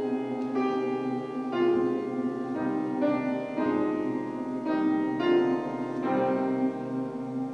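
A mixed choir singing slow, held chords with piano accompaniment, the chord changing about every second.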